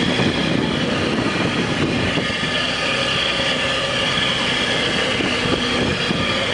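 Large car ferry's engines and propellers working close by: a loud, steady mechanical drone with a faint hum tone in it over the rush of churning propeller wash.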